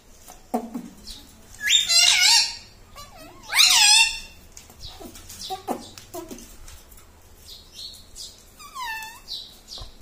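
Indian ring-necked parakeet vocalising: loud, pitched calls in a burst about two seconds in, another about a second and a half later, and a fainter one near the end.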